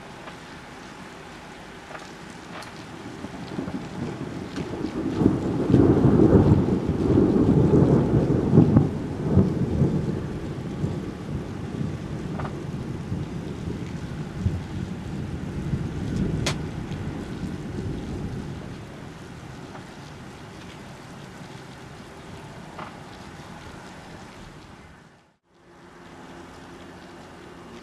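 A long roll of thunder that builds over a couple of seconds, is loudest for several seconds, then rumbles away slowly, over a steady background hiss. Near the end the sound drops out for a moment.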